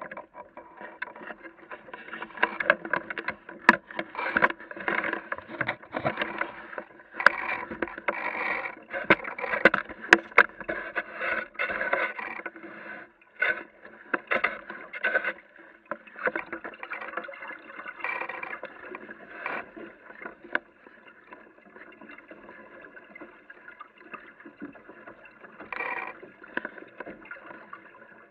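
Water splashing and slapping against the hull of a small Aquamuse sailboat under way, with irregular knocks. The splashing is busier in the first half and settles into a quieter, steadier wash after the middle.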